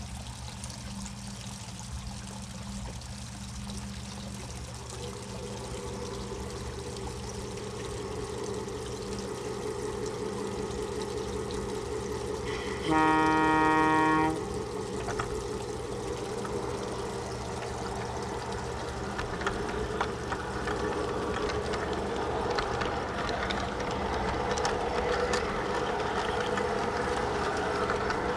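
Large-scale garden model train running, its locomotive's sound unit giving a steady engine rumble that slowly grows louder as the train gets under way. About halfway through, one loud horn blast lasting about a second and a half; short scattered clicks follow as it rolls along the track.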